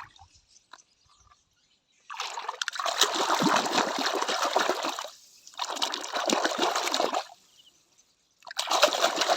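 Water pouring and splashing onto toys being washed, in three spells with short pauses between them, after a couple of seconds of quiet.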